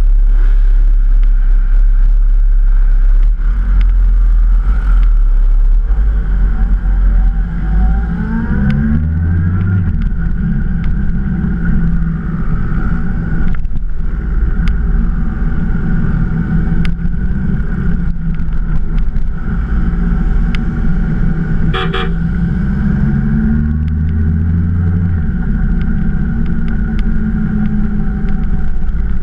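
Motorcycle engines in a group ride: a low rumble while stopped, then the bikes pulling away with engine pitch rising about eight seconds in, and running steadily at speed after that. A short horn toot about two-thirds of the way through.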